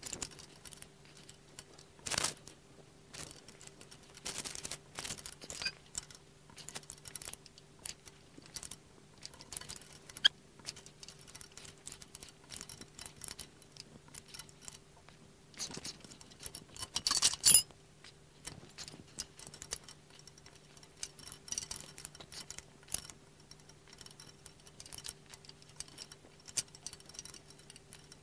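Metal tools clicking and clinking against hydraulic hose fittings on a sawmill valve bank as the fittings are tightened, with hoses shifting. Scattered sharp clicks and rattles, with a louder burst of clatter about seventeen seconds in, over a faint steady hum.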